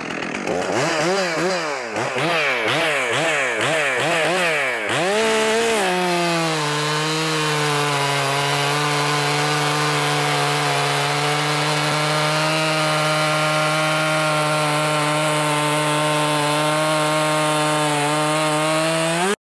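Stihl MS 400 C two-stroke chainsaw revved up and down repeatedly, about twice a second. It then settles into a steady pitch under load as its hand square-filed chain, with rakers not lowered, cuts through a log. The sound cuts off suddenly near the end.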